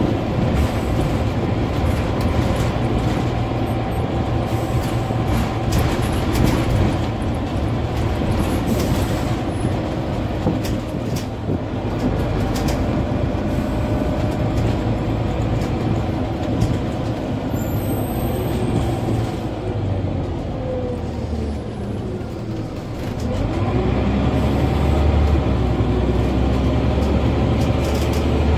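On board a Scania N94UB OmniCity single-deck bus in motion: the diesel engine and drivetrain run under road noise, with scattered clicks and rattles from the interior. Near the end the low engine drone grows louder as the bus pulls harder.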